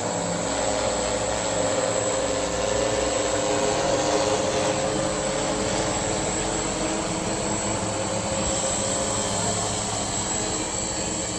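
Tarot 960 hexacopter's six electric motors and propellers whirring steadily as it comes back to land, with a hum that wavers slightly in pitch and eases off a little near the end.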